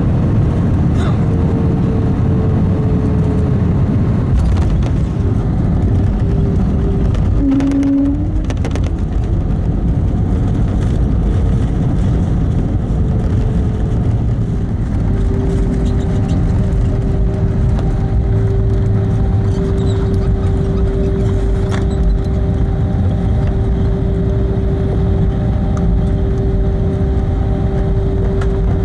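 Cabin noise of an Airbus A320neo landing: the steady rumble of the engines and the wheels on the runway, with a few knocks about four to five seconds in at touchdown. Then comes the roll-out as the jet slows with its ground spoilers up, and a steady whine sets in about halfway through.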